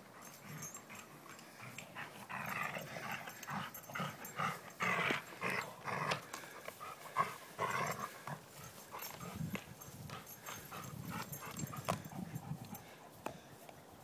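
Dogs vocalizing in many short bursts as they tussle over a rope toy, busiest in the middle.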